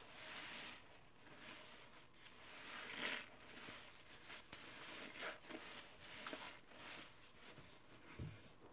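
Wet, sudsy squelching and crackling of foam as a soaked sponge is squeezed and worked in a tub of soapy water, in soft repeated strokes, the loudest about three seconds in. A soft low thud comes near the end.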